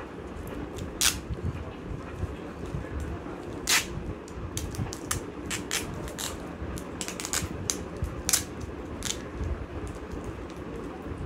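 Clear sticky tape and paper being handled as tape is pulled off the roll and stuck down: scattered short crackles and ticks, busiest in the middle, over a steady low hum.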